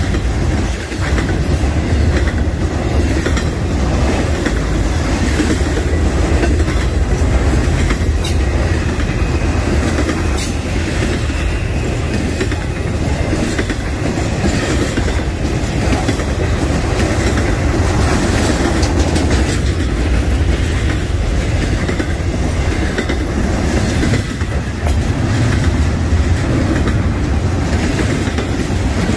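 Freight train cars rolling past in a steady heavy rumble, with wheels clicking over rail joints now and then.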